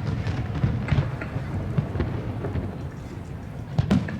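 Aerial fireworks shells bursting: a string of booms over a low continuous rumble, with a sharp bang about a second in and the loudest pair of bangs near the end.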